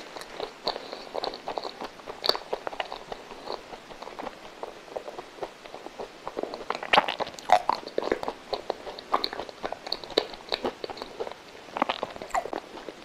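A person chewing a mouthful of soft coconut-coated milk custard roll, with irregular mouth clicks and smacks that are busiest about seven seconds in.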